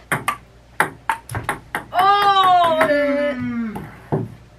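Table-tennis ball clicking sharply off paddles and table during a fast rally, several hits a second. About two seconds in, a person's long drawn-out vocal cry, falling in pitch, is the loudest sound, and a few more ball clicks follow near the end.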